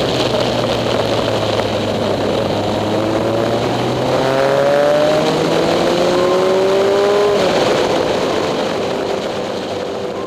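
Suzuki GS850 motorcycle's inline-four engine under way. About three seconds in, its pitch climbs steadily as the bike accelerates, then drops sharply near the three-quarter mark as the rider shifts up, with wind and road noise throughout.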